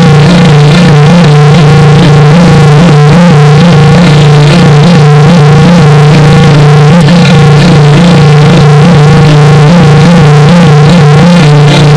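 Heavily distorted electronic music effect, clipped at full volume: a steady low drone with higher tones wobbling up and down in quick repeated waves.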